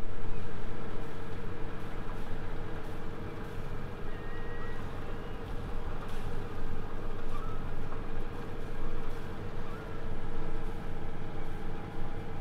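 Sailing yacht's engine running steadily under way while the boat motors slowly, a constant low hum.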